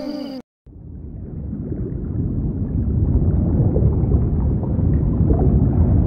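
A pitched call falls in pitch and cuts off at the start, then after a brief silence a low, deep-water ambience sound effect fades in and grows louder over a couple of seconds, with faint ticks in it.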